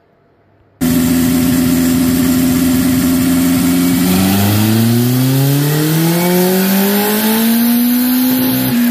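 Turbocharged Honda CB750 inline-four motorcycle engine running on a chassis dyno, steady at first, then from about four seconds in its pitch climbs smoothly as the engine pulls up through the revs in a dyno run.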